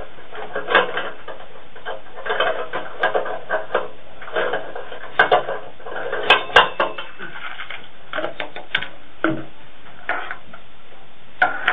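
Irregular light clicks, knocks and clatters of small things being handled, about fifteen over the stretch and loudest around the middle, over a steady hiss.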